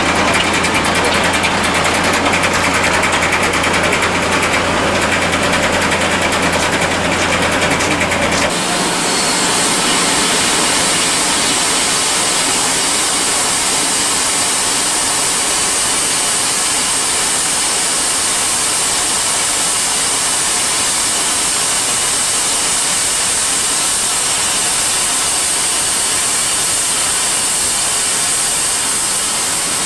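A steady mechanical hum for about the first eight seconds, then a steady hiss of steam escaping low at the front of a narrow-gauge steam locomotive, lasting to the end.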